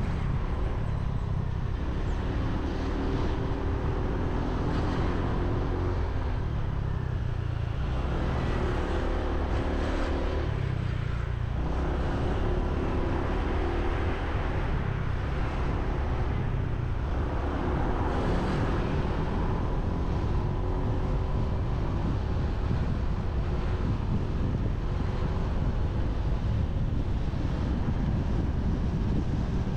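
Motorbike running along a road, its engine note rising and falling several times as it speeds up and eases off, over a steady rush of wind on the microphone and road noise.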